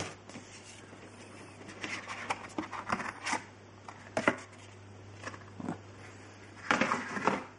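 Cardboard box packaging being handled: scattered light clicks, taps and rustles, with a longer, louder scraping rustle near the end.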